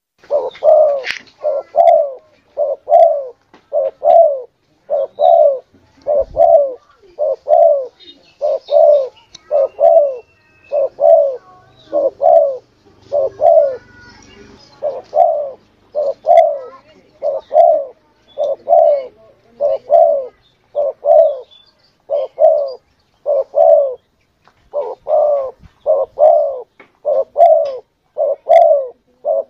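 Spotted dove (tekukur) cooing: a long run of short, mellow coo notes repeated at an even pace, about three every two seconds, with a few brief pauses between phrases.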